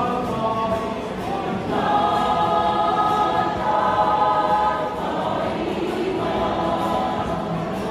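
Mixed choir singing sustained chords in harmony, louder from about two seconds in until about five seconds in.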